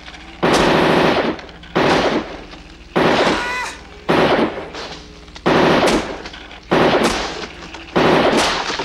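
RoboCop's Auto-9 machine pistol firing rapid bursts, seven in all, roughly one every 1.2 seconds. Each burst is a quick string of shots that rings off with a reverberant tail.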